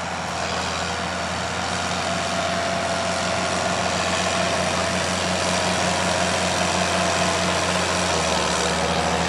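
John Deere tractor's diesel engine running steadily under load while dragging a weighted pulling sled across dirt, growing gradually louder as it comes nearer.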